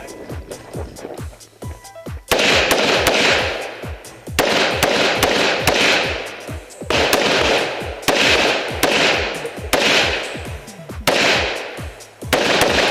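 Handgun shots fired in quick strings during a timed IDPA course of fire, with loud stretches of rushing noise several seconds long in between.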